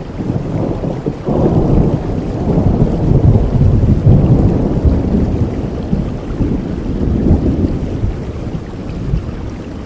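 A long roll of thunder over steady rain. The rumble swells about a second in, is loudest a few seconds later, and dies away near the end.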